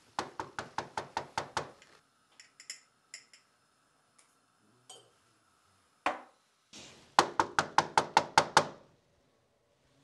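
Two quick runs of about eight sharp, evenly spaced knocks each, one near the start and one about seven seconds in, with a few lighter clinks between them.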